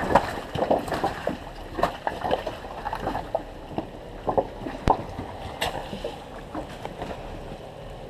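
Jeep Wrangler crawling slowly down rock ledges: irregular knocks and crunches of tyres on rock over a faint low engine rumble, with one sharp crack about five seconds in.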